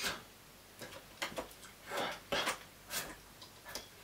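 A person's soft breaths and mouth sounds while signing, a handful of short irregular puffs and clicks with no words.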